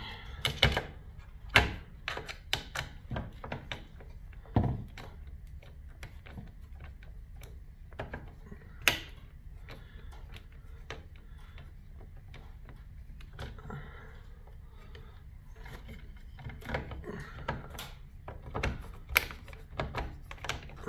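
Scattered clicks and knocks of a hand screwdriver driving self-tapping screws into a new plastic worm gear housing on a garage door opener, with the housing being handled, over a steady low hum.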